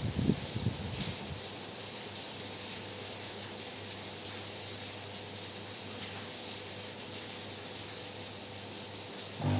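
Saeco Aulika bean-to-cup espresso machine making a milk drink: a short rumble in the first second, then a steady steam hiss with a low hum as the milk is frothed. Just before the end its pump starts with a louder buzz.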